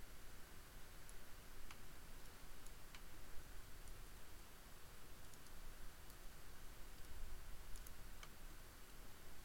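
A few faint computer-mouse clicks, scattered irregularly, over a steady low hum and hiss of room and microphone noise.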